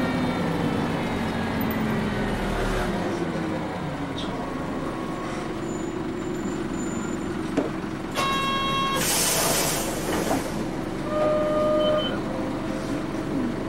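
Nissan Diesel Space Runner city bus running, its diesel engine note falling over the first few seconds and then holding steady. About nine seconds in there is a burst of air hiss, and short electronic tones sound just before it and again about eleven seconds in.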